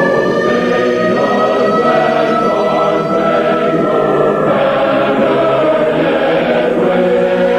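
A choir singing held chords as the national anthem of the alert broadcast, with thin high tones slowly gliding upward behind the voices.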